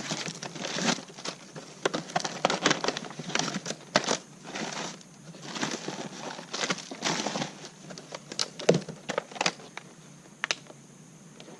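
Packaging being opened by hand without a knife, crinkling and crackling in quick, irregular snaps that thin out over the last few seconds.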